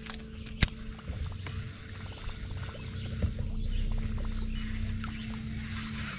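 Steady low hum of a bass boat's electric trolling motor running, which stops near the end, with a sharp click about half a second in and light clicks and knocks of fishing tackle on the boat.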